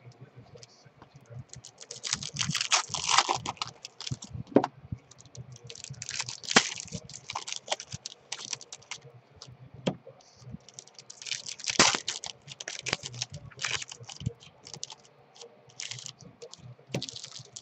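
Foil wrappers of Topps baseball card packs crinkling and tearing as the packs are opened by hand. The crinkling comes in several bursts, with sharp clicks between them.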